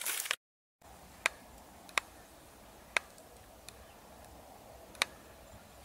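A burst of noisy crackling cuts off abruptly just after the start. Then comes a faint steady hiss with five or six sharp, isolated ticks, spaced roughly a second apart.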